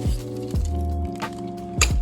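Background music: sustained synth chords over a deep bass line, with a few drum hits whose pitch drops quickly.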